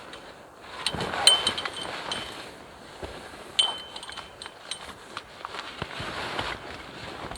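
Light metal clinks with a brief ringing tone, clearest twice (about a second in and past the middle), over a steady rush of wind. This is metal tent gear knocking together while a tent is being pitched.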